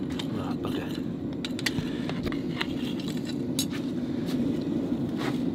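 Steady low rush of a gas forge burner running, with scattered light metallic clinks and scrapes of tongs on hot steel and the anvil.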